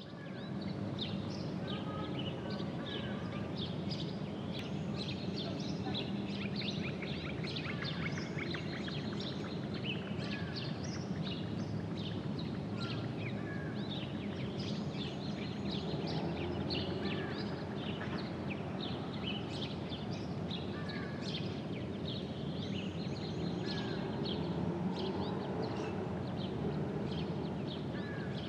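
Many small birds chirping and calling throughout, over a steady low background hum of outdoor ambience.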